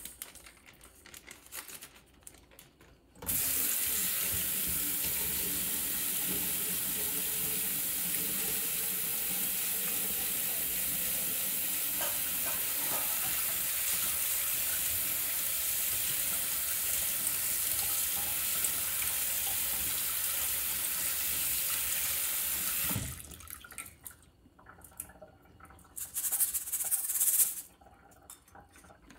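Kitchen tap running onto alkaline-enhancer beads in a mesh strainer and splashing into a stainless steel sink. The water comes on a few seconds in, runs steadily, and stops about three-quarters of the way through.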